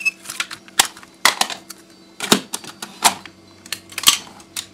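A series of sharp, irregularly spaced clicks or taps, roughly one or two a second, over a faint steady hum.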